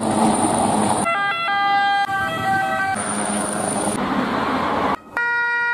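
Emergency vehicle sirens and road noise in quick cuts: an electronic siren stepping between pitches about a second in, and a steady electronic siren tone near the end, with the rush of passing vehicles between.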